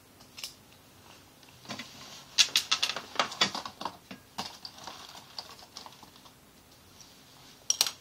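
Light clicking and clatter of small hard objects being handled: a dense, rapid run of sharp clicks about two and a half seconds in, scattered clicks after it, and two more sharp clicks near the end.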